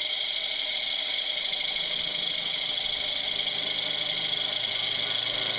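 Bowl gouge cutting into the inside wall of a bowl spinning on a wood lathe: a steady, loud shearing hiss over the low hum of the lathe motor.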